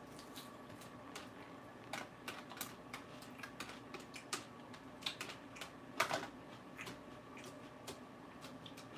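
Raw lettuce being chewed close to the microphone: irregular crisp crunches, sometimes several a second, the loudest about six seconds in, over a faint steady hum.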